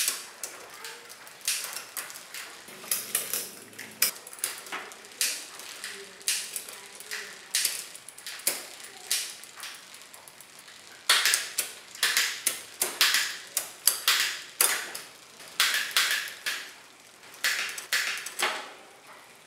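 Bicycle drivetrain running as the rear wheel is spun: the chain running through a Shimano Tiagra 9-speed rear derailleur and 11–42T cassette, giving irregular sharp metallic clicks and clacks, a few each second. The clicks get louder and closer together about eleven seconds in.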